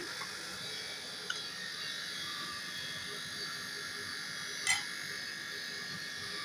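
Steady high-pitched electrical buzz, with a faint click about a second in and a short tap near five seconds.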